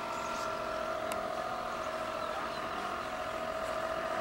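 Small electric motor of a cheap toy radio-controlled boat running under way, a steady high-pitched whine.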